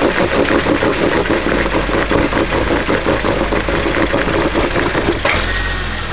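Lifted Jeep Wrangler's engine running at low revs as it crawls over a large boulder. The sound drops back for a moment about five seconds in, then picks up again.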